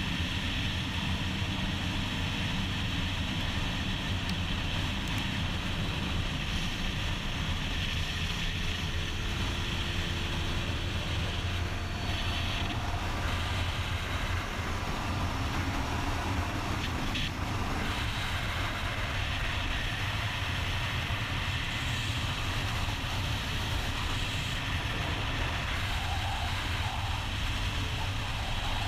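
Sport motorcycle engine running steadily at highway cruising speed, with wind rushing over the camera microphone.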